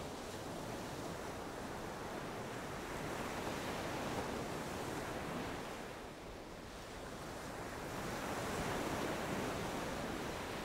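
Ocean surf: a steady rushing wash of waves that eases off about six seconds in and swells back up a couple of seconds later.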